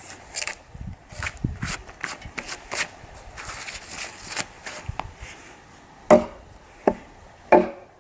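Light clicking and rustling of handling, then three sharp knocks of something hard striking wood near the end, each with a brief hollow ring.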